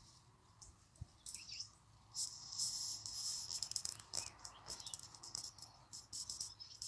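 Dry weeds and plant stalks rustling and crackling as they are pulled up by hand from a garden bed. The rustle is loudest for a couple of seconds in the middle and comes back briefly near the end.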